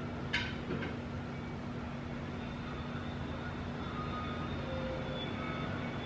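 Outdoor ambience: a steady low hum with faint, short high tones scattered through it, and one sharp click just after the start.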